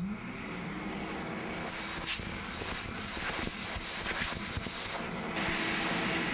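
Vacuum cleaner motor spinning up and running steadily, with a rushing hiss of air being drawn through the nozzle for several seconds. It is sucking concrete dust out of a freshly drilled anchor hole.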